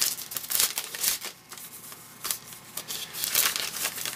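Crinkly wrapper of a baseball-card panel being torn open and pulled apart by hand, an uneven run of crackling and crinkling that eases off briefly around the middle.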